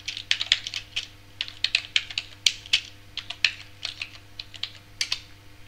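Computer keyboard typing: an irregular run of quick keystrokes.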